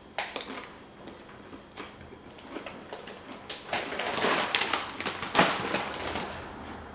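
Crunching of a tortilla chip with hot crab dip chewed close to the microphone. About four seconds in comes a loud run of crinkling as a plastic Doritos chip bag is handled.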